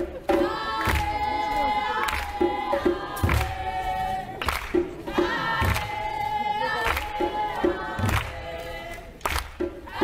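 A group of voices singing together in held notes over a low beat that repeats roughly once a second.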